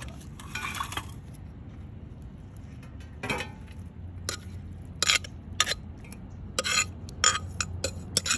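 A metal spoon scraping and clinking against a clay mortar and a plate as papaya salad is scooped out. The clinks are sparse at first and come quicker and sharper in the second half.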